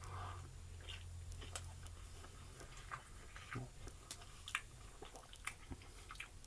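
A person chewing a mouthful of chicken burger close to the microphone: soft wet smacks and clicks at an irregular pace.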